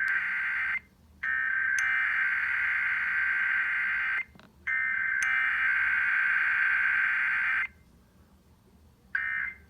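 Emergency Alert System SAME digital data bursts: buzzy two-tone data signal. One burst ends just under a second in, two long bursts of about three seconds follow after short breaks, and a short burst comes near the end. The long bursts fit the repeated test header and the short one the end-of-message code.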